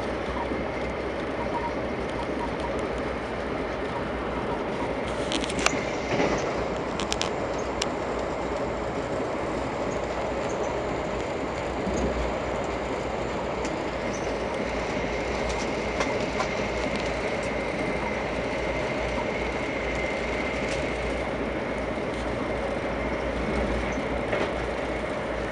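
VIA Rail passenger train running at speed, heard from inside the coach: a steady rolling rumble with a faint steady whine, and a few sharp clicks about six to seven seconds in.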